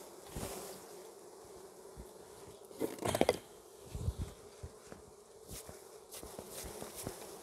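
Swarm of honeybees buzzing in a steady hum over an open hive, swelling louder with a rising buzz about three seconds in, with a few light knocks.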